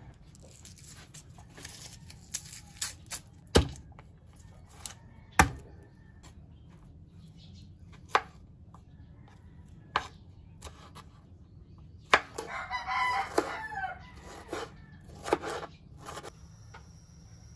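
A kitchen knife chopping on a bamboo cutting board, single sharp knocks a couple of seconds apart as garlic and tomato are sliced. A rooster crows once about two-thirds of the way through.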